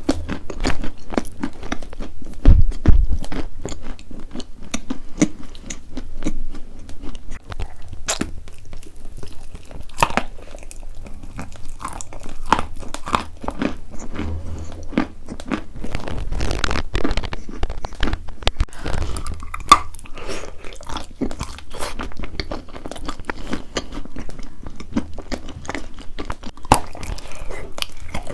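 Close-miked biting and chewing of something brittle: a dense run of sharp crunches, heaviest about two and a half seconds in.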